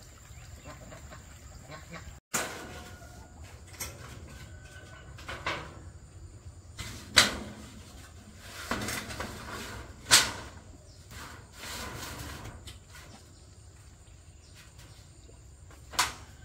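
Irregular knocks and thumps, about six of them, the loudest two near the middle, with scraping or rustling between them, like materials being handled and set down during manual work.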